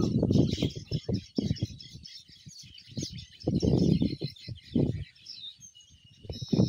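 Many small birds chirping together in a continuous busy chorus. Loud irregular low rumbling bursts come and go over it, strongest at the start, around 3.5 to 5 seconds in, and again near the end.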